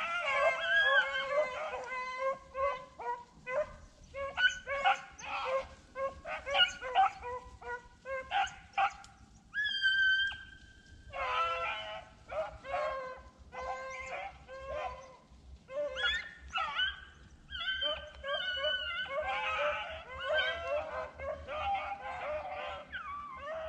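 Hunting beagles baying as they run a rabbit: many overlapping barks and bawls, with one long, steady note about ten seconds in.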